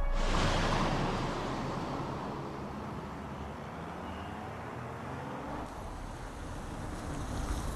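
Street traffic noise. It comes in suddenly and loud at first, then fades over about two seconds into a steady background of traffic.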